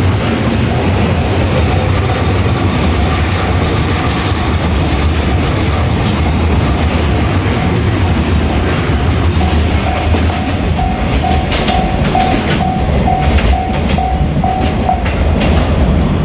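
Container wagons of a JR Freight train behind an ED76 electric locomotive rolling past with a steady low rumble, their wheels clacking over rail joints, the clacks coming in clusters in the later seconds. A level crossing alarm rings at about two beats a second, loudest in the second half and stopping shortly before the end.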